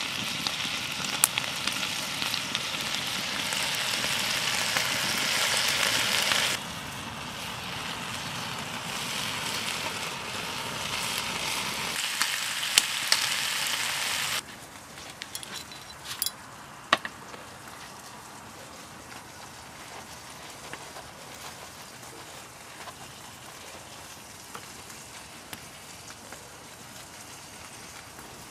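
Smoked back bacon sizzling loudly and steadily in a frying pan over a wood fire, with a few sharp crackles. About halfway through it drops suddenly to a faint hiss with scattered small pops.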